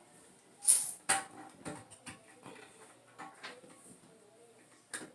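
Handling noises: a short scraping rush about a second in, followed by a sharp knock, a few light clicks and taps, and another knock near the end.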